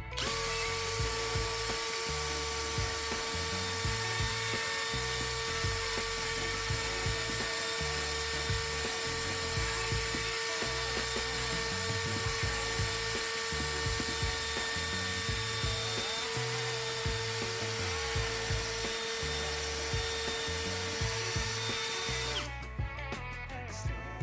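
A small electric power tool motor running steadily with a constant whine, starting abruptly and cutting off suddenly near the end, over background music.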